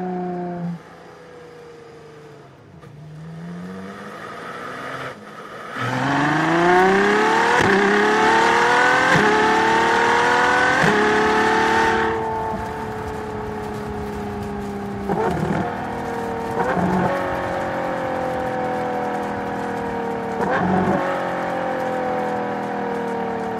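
LaFerrari's V12 engine accelerating hard from about six seconds in, its pitch climbing and dropping quickly at three upshifts. It then eases off and runs on with the pitch slowly falling, broken by three short louder bursts.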